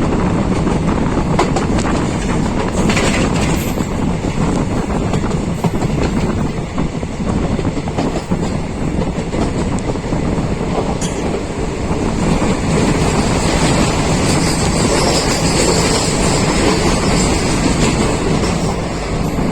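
Kanchanjunga Express passenger train running at speed, its wheels clattering steadily over the rails.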